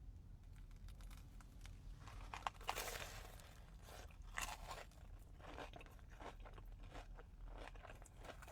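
Crunchy bites into a crispy potato-coated Korean corn dog, beginning about two seconds in, followed by crunchy chewing in short repeated strokes.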